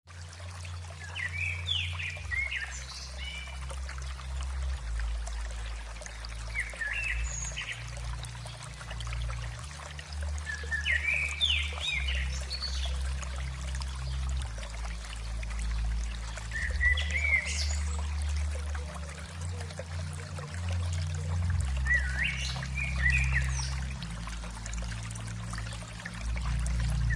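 Running water flowing steadily, with a bird singing a short chirping phrase about every five or six seconds over it.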